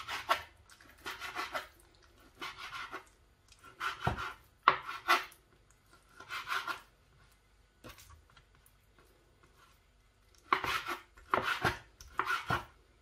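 Kitchen knife cutting raw chicken breast into cubes on a plastic cutting board, the blade knocking on the board in quick clusters of strokes about once a second. There is a pause in the middle, then a closer run of cuts near the end.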